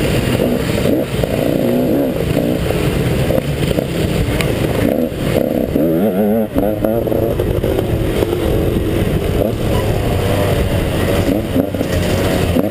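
KTM 150 XC two-stroke dirt bike engine revving hard, its pitch rising and falling in quick swings as the throttle is worked.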